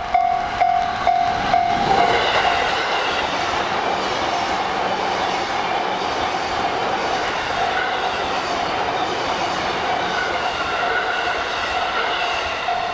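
Japanese level-crossing warning bell ringing at about two strikes a second. From about two seconds in, a train runs over the crossing, its wheels clattering steadily over the rails, and the bell keeps ringing under the noise.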